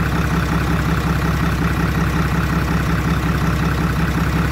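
Freshly overhauled Isuzu 6HL1 inline-six diesel engine idling steadily and smoothly, with no piston slap.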